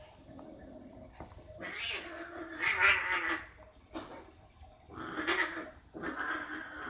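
Two domestic cats fighting, with three stretches of yowling cries. The first, about two to three seconds in, is the loudest; the others come near five and six seconds.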